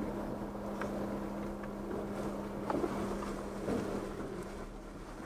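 Off-road 4x4's engine running low and steady as the vehicle crawls slowly along a dirt trail, with a few light clicks and knocks scattered through it.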